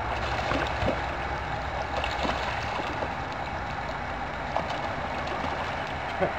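A few short calls from mallard ducks and ducklings, the loudest near the end, over a steady rushing background noise.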